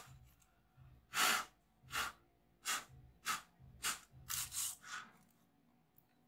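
A series of about eight short scratchy handling noises, roughly one every two-thirds of a second, as a replacement laptop keyboard is handled and fitted into the laptop; they stop about five seconds in.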